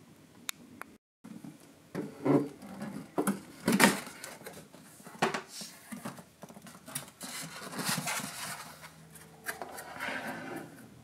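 Hands unpacking and handling packaging: irregular rustles, scrapes, knocks and sharp clicks, with a brief dropout about a second in.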